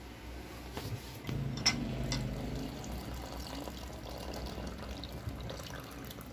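A thin stream of water running from the spigot of a blue plastic water container into a ceramic coffee mug, filling it. There is a sharp click about a second and a half in.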